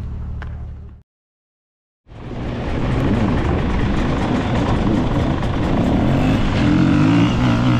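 A motor vehicle's engine running loud and close, its pitch wavering up and down, starting abruptly about two seconds in after a second of dead silence.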